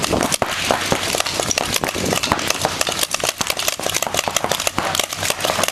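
Reball markers firing, a dense run of irregular sharp pops and clacks overlapping one another as a round of play gets under way.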